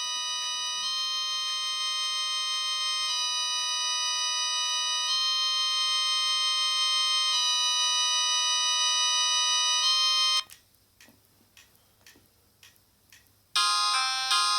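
Samsung SGH E300 mobile phone playing a polyphonic ringtone through its loudspeaker: a slow, synth-like tune of long held chords that slowly grows louder and cuts off suddenly about ten seconds in. After a few faint clicks, another ringtone with quicker notes starts near the end.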